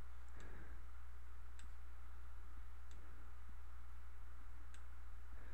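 Computer mouse clicking a few times at irregular intervals, two quick clicks near the start and single ones later, over a steady low electrical hum.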